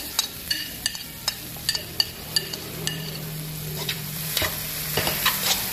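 Sliced lemongrass and chili sizzling in hot butter and oil in an aluminium wok, stirred with a utensil that taps against the pan about two or three times a second.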